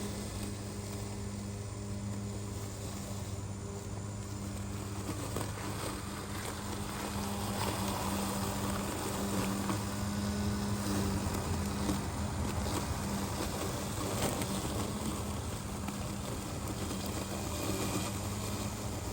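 Luba 2 robotic lawnmower's electric motors humming steadily as it cuts tall grass, growing a little louder and rougher about seven seconds in.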